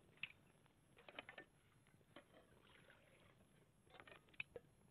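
Near silence, with a few faint, scattered clicks and ticks.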